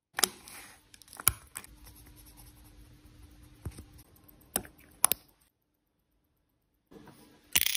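Small sharp clicks of steel tweezers picking up and setting down tiny watch parts, about half a dozen spread out, with a louder clack near the end. Between the clicks comes faint scratching as a pegwood stick scrapes hardened old oil sludge off a brass movement bridge.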